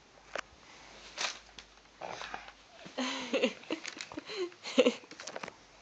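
Small children's breathy vocal sounds: short sniffs, puffs of breath and brief high squeals and giggles, bunched in the second half, with a few small mouth clicks.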